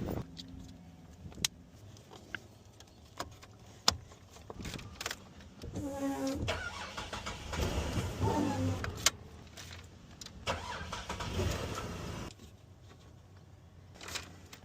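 Scattered sharp clicks, then a car engine turning over on the starter in two spells, about six and ten seconds in, before it goes quiet.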